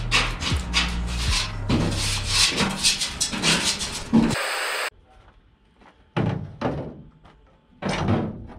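Paintbrush scrubbing zinc paint onto a bare steel body panel: quick rubbing strokes, several a second, then a short pause about five seconds in before a few more strokes near the end.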